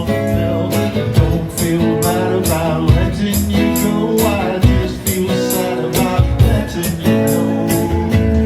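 A band playing a guitar-led song with a steady beat.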